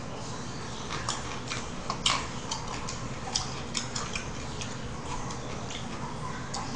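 Eating sounds over spicy beef soup (yukgaejang): irregular sharp clicks and smacks of chewing and of the spoon and chopsticks against the plastic container, the loudest about two seconds in.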